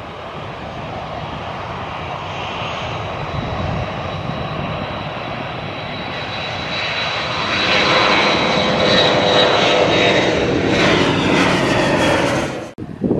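Twin-engine jet airliner at take-off thrust, rolling down the runway and lifting off. The jet roar grows louder as it climbs past, with a steady high whine over the rush, and it cuts off abruptly near the end.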